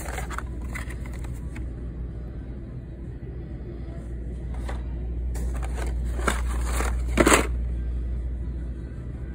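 Blister-carded die-cast cars being shuffled in a cardboard case: stiff plastic-and-card packs scraping and rustling against each other and the box in short bursts, the loudest about seven seconds in, over a steady low rumble.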